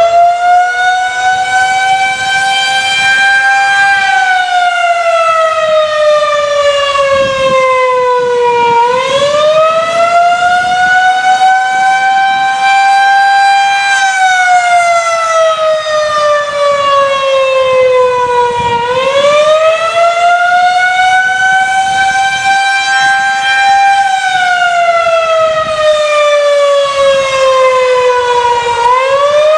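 Federal Signal 2001-130 electronic rotating outdoor warning siren sounding its Attack signal. It is a loud wail that climbs in pitch and falls back slowly, about once every ten seconds, three cycles in all.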